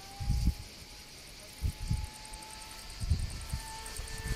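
Electric RC pylon-racer model aircraft flying overhead: a faint, thin motor-and-propeller whine whose pitch slides slowly downward, dropping more steeply near the end as the plane passes. Three short low thumps about a second and a half apart.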